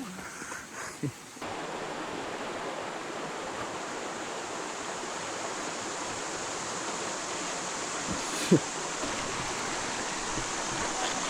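Steady rush of a flowing stream, which starts abruptly about a second in. One sharp click cuts through it about two-thirds of the way through.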